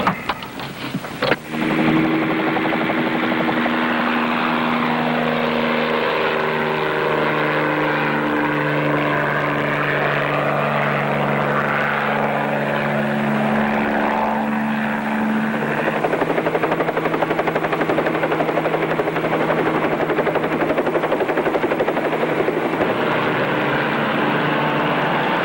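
Bell 47 helicopter in flight: rotor chopping rapidly and steadily over the drone of its engine, coming in loud about a second and a half in after a few sharp clicks.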